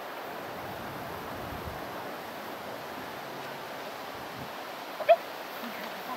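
Steady rushing wind noise on the microphone in an open field. About five seconds in there is one brief, sharp, high-pitched sound.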